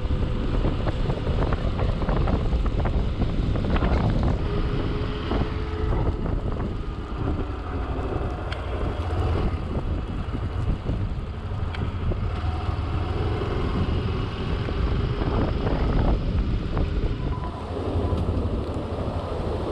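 Motorcycle riding along, its engine running under heavy wind noise buffeting the microphone.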